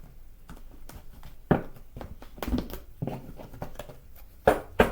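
Tarot cards being handled and shuffled: scattered sharp snaps and taps of the cards, the loudest about one and a half seconds in and a quick pair near the end.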